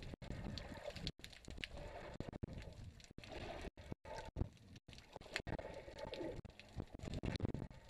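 Muffled underwater water noise picked up through a GoPro's waterproof housing: uneven sloshing and gurgling as the camera moves just below the surface. The sound cuts out abruptly for an instant several times.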